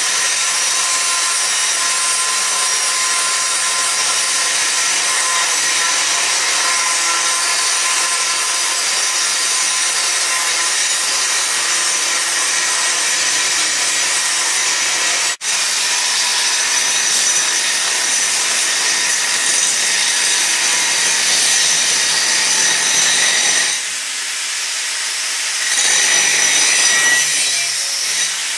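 Angle grinder with a cutting disc slicing through steel tubing, a loud, steady screech. It drops out for an instant about halfway, turns quieter for a couple of seconds near the end, then bites in louder again.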